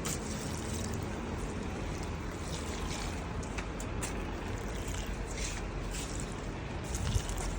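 Strong wind blowing steadily, buffeting the microphone with a low rumble, with a few faint ticks and rustles.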